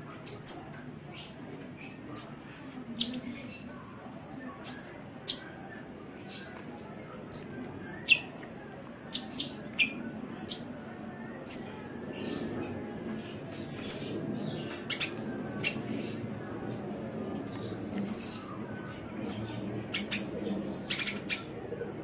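Sunbird (the Indonesian bird-keepers' 'kolibri') giving short, sharp, high-pitched chirps, singly and in quick pairs or triplets about once a second, over a faint low background noise.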